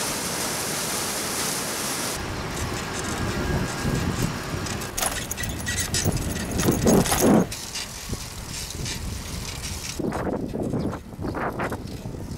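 Wind buffeting the microphone of a moving mini-velo bicycle, mixed with light rattling and road noise from the bike and its front wire basket. Heavy gusts come about seven seconds in. A steady rushing hiss fills the first two seconds and stops abruptly.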